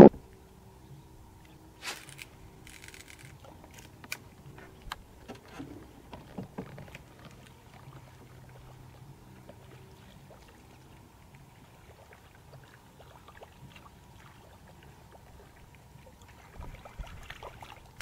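Quiet sounds from a small fishing boat on still water: faint scattered clicks and knocks over a low steady hum, with a few louder knocks near the start.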